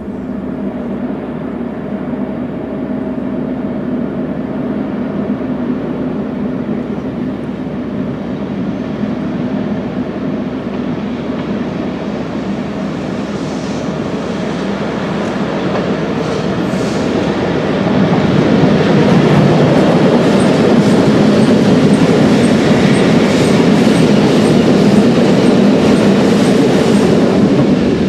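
Seven ÖBB class 1144 electric locomotives coupled together running light and passing close, with a steady mechanical hum carrying a few held low tones. It grows louder about two-thirds of the way in. Near the end the wheels add a regular clicking, about one to two ticks a second.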